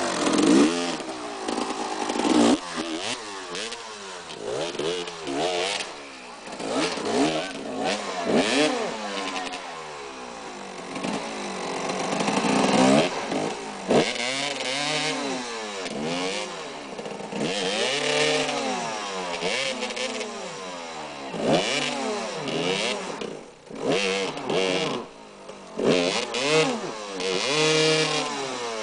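Enduro motorcycle engine revved up and down over and over, its pitch rising and falling every second or two, as the bike is worked up a slippery uphill.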